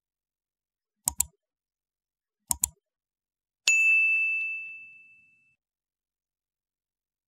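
Two quick double mouse clicks about a second and a half apart, then a single bright bell ding that rings out over about two seconds: the sound effects of a like-and-subscribe animation, the clicks pressing the buttons and the ding marking the notification bell.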